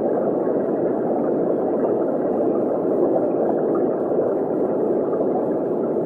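Steady, muffled underwater water noise, an even rush with no distinct tones.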